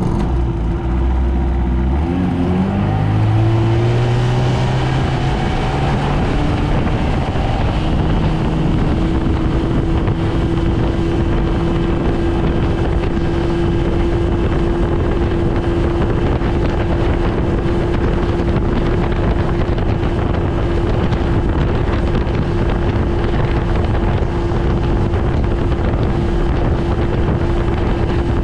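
A 1971 Evinrude Sportster 25 hp two-stroke outboard motor being throttled up, its pitch climbing over the first several seconds as the boat gathers speed. It then runs steadily at high revs, with wind on the microphone.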